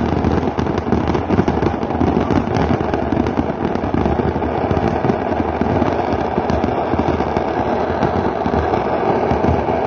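Engine running loud and steady, with rapid crackling pops from the exhaust.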